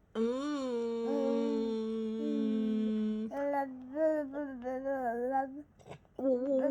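A voice humming: one long steady note for about three seconds, then shorter wavering hummed notes, a brief pause, and more humming near the end.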